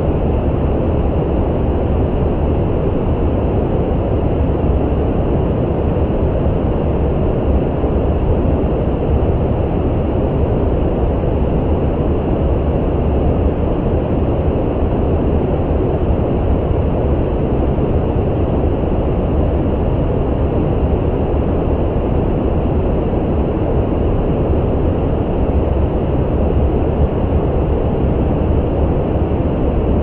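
Brown noise: a steady, even hiss that is deep and low-weighted, with most of its energy in the bass and little treble. It does not change.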